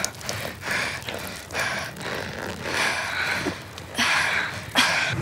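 A person breathing hard, with hissy breaths about once a second.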